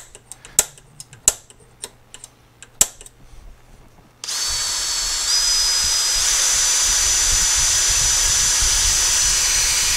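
A few sharp metallic taps, then about four seconds in a cordless DeWalt drill starts drilling a hole in a short piece of steel angle iron clamped in a vise. It runs steadily, its whine stepping up in pitch twice.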